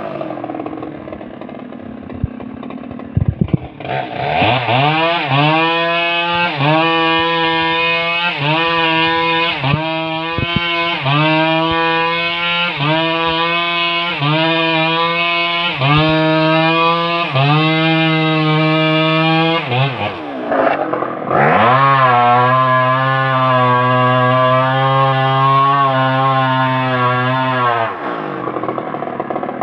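Stihl MS 381 two-stroke chainsaw revved hard in surges about once a second, each surge rising in pitch. The engine briefly drops, then holds a steady high run for several seconds before falling back near the end.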